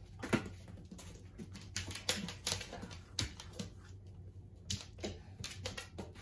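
Irregular light clicks and taps, a dozen or so spread over several seconds, from a dog moving about and handling toy stacking rings.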